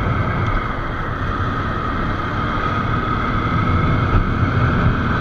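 Motorcycle running at a steady cruising pace, engine rumble with a faint steady whine and wind noise over the camera microphone.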